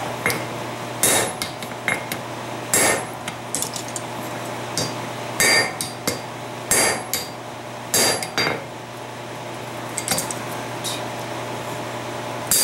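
Hand forging hammer striking red-hot steel on an anvil in irregular blows, about five heavy strokes a second or two apart with lighter taps between, each followed by a short metallic ring. A steady low hum runs underneath.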